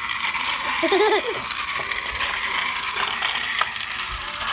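Plastic gear mechanism of a Thomas & Friends toy mining set whirring steadily with scattered ratcheting clicks. A short vocal sound comes about a second in.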